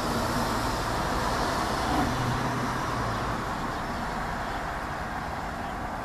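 Steady road traffic noise with a low engine hum that dies away about halfway through.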